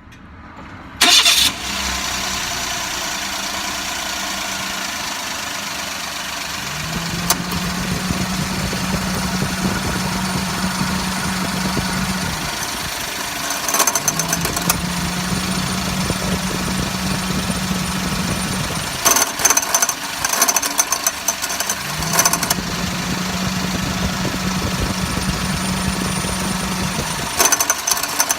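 Suzuki Wagon R's small three-cylinder engine starts about a second in and idles while the air conditioning is switched on and off: three times a steady low hum sets in for about five seconds and then stops, and each time it drops out there is a burst of rattling clatter. The rattle comes from the AC compressor's magnetic clutch, the cause of the rattle heard when lifting off the accelerator while driving.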